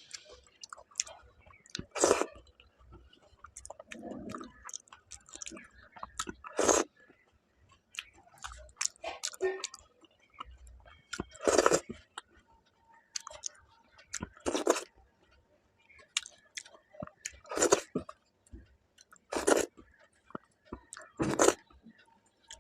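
A person chewing a meal of rice, fish curry and pakora close to the microphone, with a loud, sharp mouth smack or crunch every few seconds.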